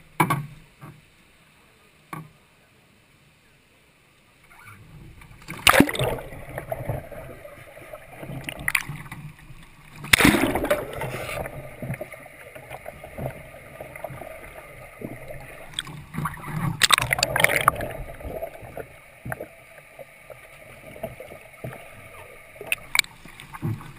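Sea kayak capsizing and being rolled back up: splashing, with water sloshing and gurgling, and three loud surges of splashing about six, ten and seventeen seconds in.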